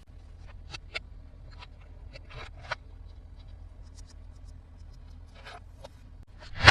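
Light clicks, taps and short rustles of plastic toys and packaging being handled, with one louder knock near the end.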